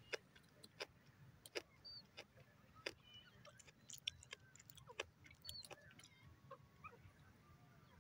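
Faint, soft clicking clucks from a grey francolin, short sharp notes about once or twice a second, with a few faint small-bird chirps in the background.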